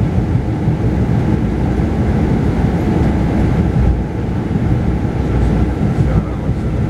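Mercedes-Benz O-500RSD double-decker bus running steadily at road speed, a constant low engine and tyre rumble heard from inside the upper-deck cabin.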